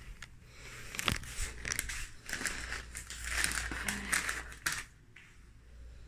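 Plastic bag rustling and crinkling as it is handled, with a few sharp clicks and knocks, the clearest about a second in.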